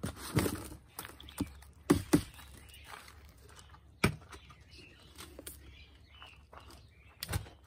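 Potting soil tipped out of a plastic plant pot into a plastic tub, with a rustle of falling mix and several sharp knocks of plastic on plastic. The loudest knocks come about two and four seconds in.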